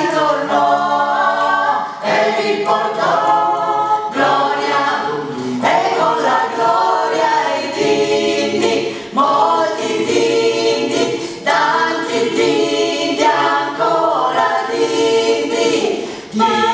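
Small mixed group of men and women singing a cappella in harmony, without accompaniment, in short phrases with brief breaks between them.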